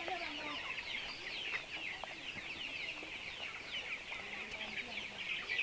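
A flock of young Giriraja chickens peeping and cheeping all at once: a continuous chorus of many short, high, falling calls overlapping, with a few lower calls among them.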